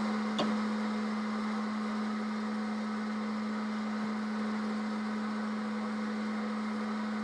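Electric popcorn popper running while it heats up, before any kernels pop: a steady hum with an even hiss, and a faint click about half a second in.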